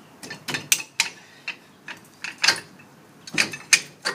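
Metal clanking and scraping as a pry bar works a stuck brake caliper loose off the rotor: a string of irregular sharp clanks.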